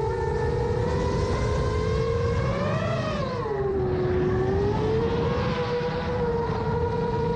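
A 7-inch FPV quadcopter's motors and propellers whining steadily over a low rush of air. About three seconds in, the pitch rises briefly with a throttle punch, dips below its cruising note, then settles back.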